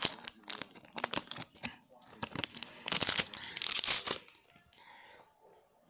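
Trading card pack wrapper being torn open and crinkled: a run of sharp rips and crackles, the loudest tearing about three to four seconds in, stopping at about four and a half seconds.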